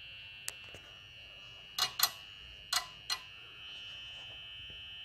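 Four sharp, very short clicks in two close pairs about two and three seconds in, after one fainter click near the start, over a steady high-pitched whine.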